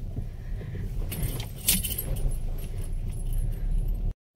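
Car cabin noise while driving slowly: a steady low engine and road rumble, with light metallic jingling and clinks about a second in. The sound cuts off abruptly just before the end.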